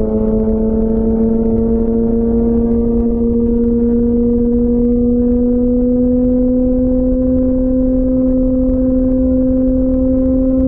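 2004 Honda CBR1000RR Fireblade's 998 cc inline-four running through a Jardine titanium aftermarket exhaust at steady throttle on the move, its note climbing slowly and evenly in pitch as the revs build. A low rush of wind noise runs underneath.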